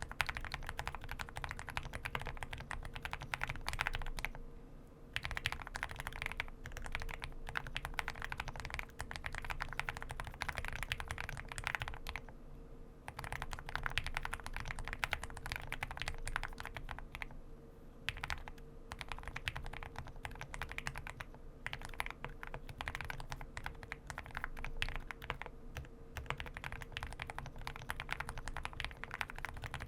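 Typing on an Owlab Spring custom mechanical keyboard with Everglide BeesWax linear switches and double-shot PBT keycaps: a continuous run of keystrokes, broken by a few short pauses.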